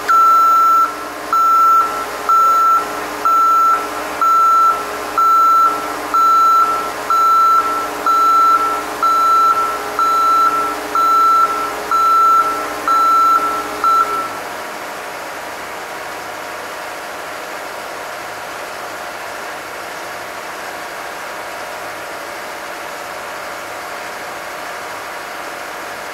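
Reversing alarm on construction machinery beeping about once a second, some fifteen beeps, then stopping about halfway through. A vehicle engine keeps running steadily underneath.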